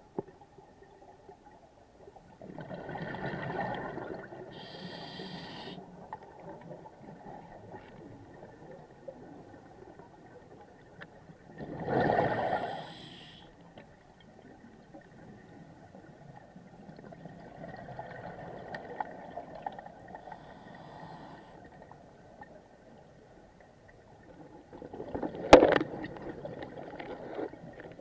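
A scuba diver breathing underwater through a regulator: a few slow breaths, each a swell of exhaled bubbles, with a thinner hiss of the regulator on one inhale. A single sharp click near the end is the loudest sound.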